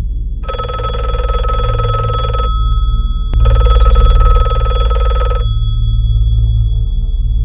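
Telephone bell ringing twice, each ring about two seconds long with a short pause between, over a low steady hum.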